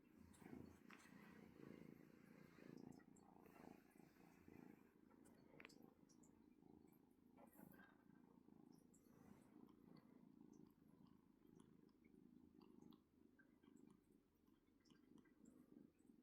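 A kitten purring faintly and steadily, the low purr running without a break.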